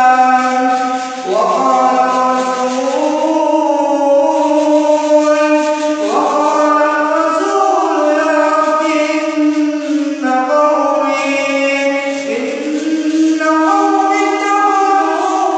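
A man reciting the Quran in a melodic chant, holding long drawn-out notes and sliding up in pitch into each new phrase three times.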